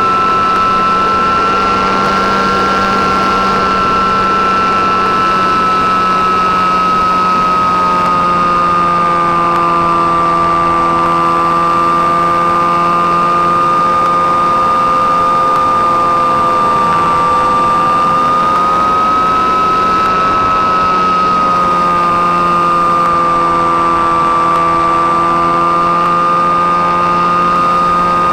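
Motor and propeller of a radio-controlled model Cessna 337 running steadily in flight, heard close from the onboard camera: a loud, steady high whine with lower tones beneath it, over a rush of air. The pitch wavers a little, dipping slightly, rising briefly past the middle, then dipping again.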